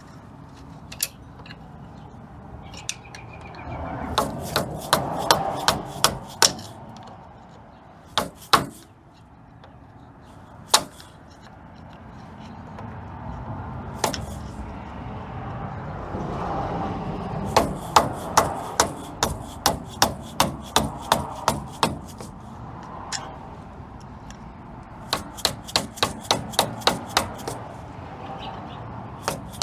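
Hammer striking a screwdriver to drive out the front brake caliper's split pins on a 1994 Ford Ranger 4x4. The blows come in several runs of sharp strikes, about two a second, with short pauses between runs.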